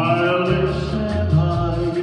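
A man singing a long held note into a handheld microphone, the note bending slightly down and wavering, over backing music with a pulsing bass line.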